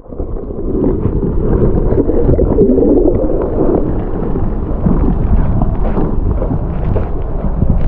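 Water churning around a submerged camera's microphone: a loud, muffled underwater rumble and gurgle with dull knocks, and the high sounds cut off.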